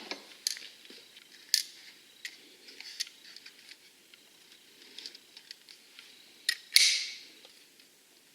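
Handling noise: scattered light clicks and knocks of metal and plastic parts being moved about, with a louder click and short scrape near the seventh second.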